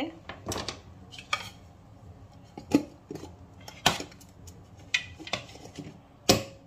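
A stainless steel pot and a plate knocking and clinking together as the pot is turned over to turn a baked cake out. About seven separate knocks, the loudest near the end.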